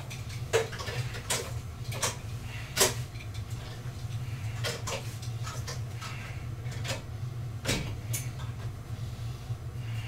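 Irregular clacks and knocks from an incline sliding-board exercise machine as it is worked through its cable handles, about one a second, over a steady low hum.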